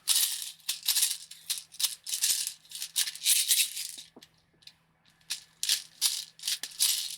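Airsoft BBs rattling in repeated shaking strokes, about three a second, with a pause of about a second just past the middle.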